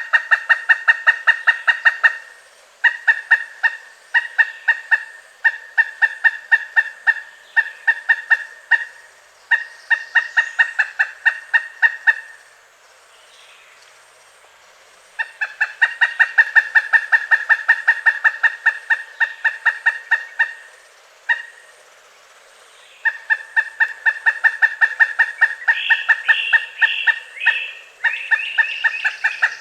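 Pileated woodpecker calling: long, rapid series of loud, even 'kuk-kuk-kuk' notes, about six a second, given in bouts of a few seconds separated by short pauses.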